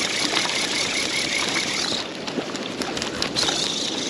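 Steady rushing noise of wind and water at the rocks, with small clicks and knocks of a spinning rod and reel being handled.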